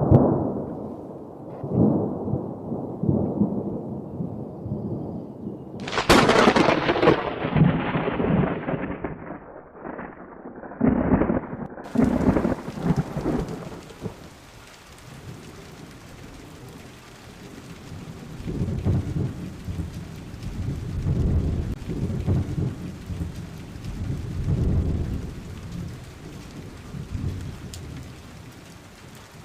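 Thunderstorm: low rolling thunder, a sharp thunderclap about six seconds in, then steady rain starting about halfway through, with more rumbles of thunder under it.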